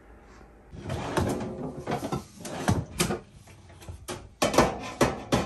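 Clanks and knocks of a full-size metal baking sheet against the open door and rack of an Atwood RV oven as it is tried and fails to fit. There are several separate knocks, with a quick cluster of louder ones near the end.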